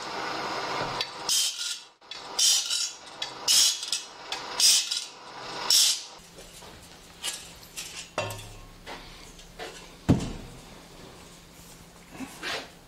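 Saw-sharpening machine working along a gang-saw blade, with a hissing grinding stroke about once a second for the first few seconds. Then it runs with a low hum under metallic clicks and clinks as the steel blade is handled, and there is one sharp knock around ten seconds in.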